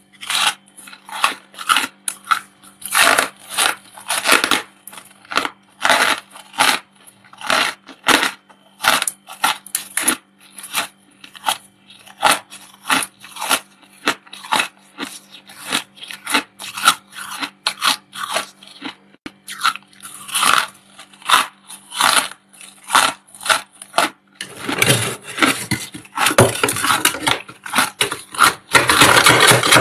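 Thick, snowy freezer frost being scraped with a flat scraper: short crunchy scrapes about twice a second. Near the end the scraping becomes fast and near-continuous.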